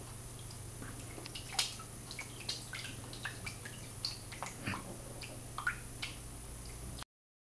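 A kitten pawing at the water in an open glass aquarium: a string of small, irregular splashes and drips over a faint steady hum. The sound cuts off abruptly near the end.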